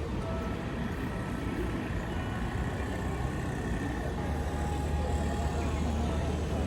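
Street traffic rumbling steadily, with a low engine hum that grows stronger about four seconds in as vehicles come onto the street.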